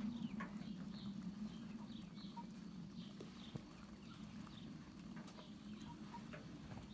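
Hens pecking grain off bare dirt: scattered light taps, with small high chirping calls over a steady low hum.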